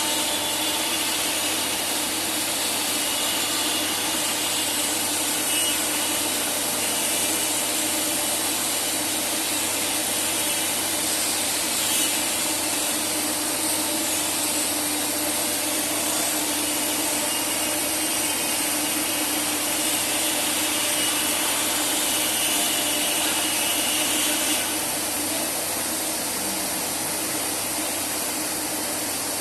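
CNC wood router running, its spindle cutting wood with a steady high hiss and faint whining tones. The noise eases slightly near the end.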